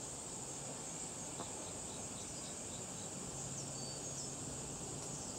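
Steady high-pitched insect chorus, with a low steady hum coming in a little over three seconds in.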